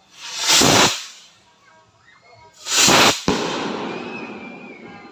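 Fireworks: two loud rushing swells from launching skyrockets, each building for about half a second and cutting off. About three seconds in comes a sharp bang with a long fading tail.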